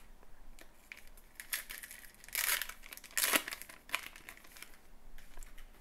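A trading-card pack's wrapper crinkling as it is handled and torn open, with two louder tearing rustles about two and a half and three seconds in.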